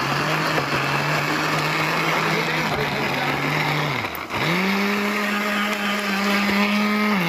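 Countertop blender grinding soaked dried chillies, garlic, onion, ginger and tomato with a little water into a sambal chilli paste. The motor runs steadily, stops about four seconds in, then starts again at a higher pitch and winds down near the end.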